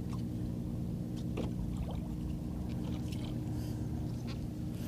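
Steady low hum and water lapping against a kayak hull, with a few faint ticks as a fishing rig is handled.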